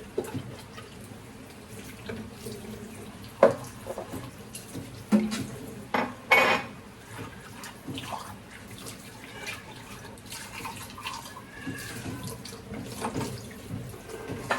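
Water running from a tap into a sink, with several sharp knocks and clinks of items being handled in it.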